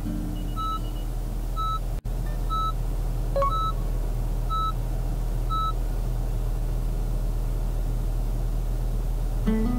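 Car's reverse warning chime beeping about once a second, six short beeps, over the low steady hum of the Honda Vezel Hybrid as it is backed into a parking space. The beeps stop about six seconds in, leaving only the hum.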